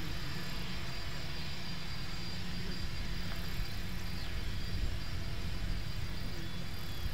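Jet engines of a JASDF U-4 (Gulfstream IV, twin Rolls-Royce Tay turbofans) running at a distance while it taxis: a steady rushing hum with a faint high whine.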